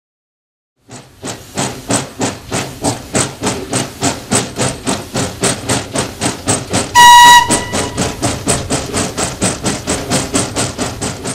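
Steam locomotive working, its exhaust chuffing in a steady rhythm of about three beats a second, starting about a second in. One short, loud whistle blast sounds about seven seconds in.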